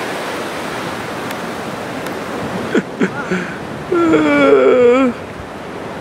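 Strong gusty wind rushing over the microphone with shore surf beneath, a steady roar of noise. About four seconds in, a wavering, slightly falling vocal 'oooh' sounds for about a second, the loudest thing here.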